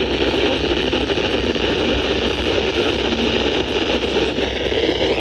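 Steady radio static and hiss from a weather radio receiver tuned to a NOAA Weather Radio frequency, over a low hum.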